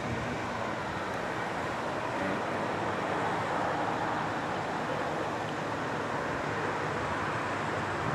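Steady rushing noise of wind and distant traffic, with a faint low drone from a diesel freight locomotive approaching from far off.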